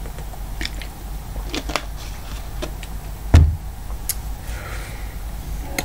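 A drink is set down on a desk with one dull thump about three seconds in. A few faint clicks and small handling sounds come before it, over a steady low hum.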